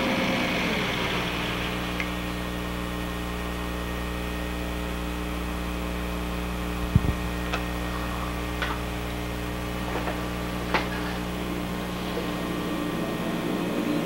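Steady electrical mains hum with its overtones, with a few faint clicks around the middle. The tail of a piece of music fades out within the first second.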